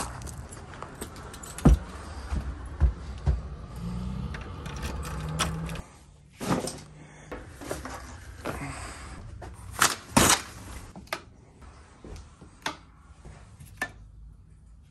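Footsteps and key and door handling, then the steady outdoor background cuts off suddenly about six seconds in. After that come scattered sharp clicks and knocks from curtains being drawn open and a wall light switch being flipped near the end.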